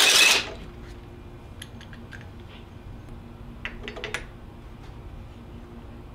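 A cordless impact driver runs in one short burst of about half a second, spinning the pulley nut off an alternator shaft. After it come a few light metallic clicks and clinks as the pulley and nut are handled.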